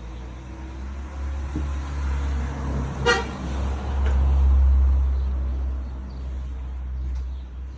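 Abarth car's engine and exhaust running with a deep, low rumble that swells louder about four to five seconds in. A short, high toot sounds about three seconds in.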